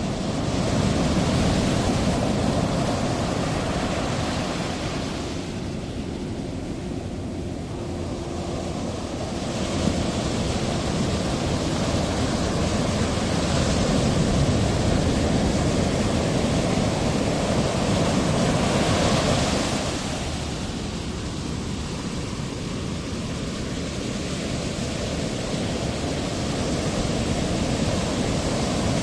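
Ocean surf: a steady wash of breaking waves that swells and eases every several seconds.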